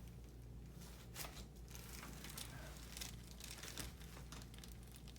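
Faint, irregular crinkling and rustling as hands and the patient's head shift on the chiropractic treatment table during a neck adjustment, over a steady low hum.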